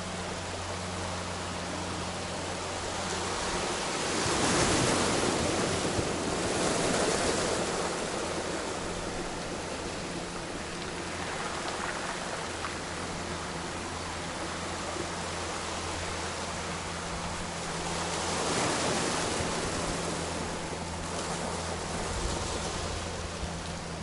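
Small ocean waves washing up on a pebble beach, the surf swelling twice, about four seconds in and again about two-thirds of the way through. A low steady hum runs underneath.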